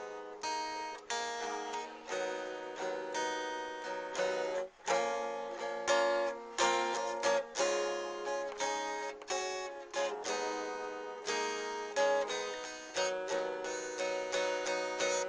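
Instrumental music: an acoustic guitar strumming chords in a quick rhythm of sharp strokes.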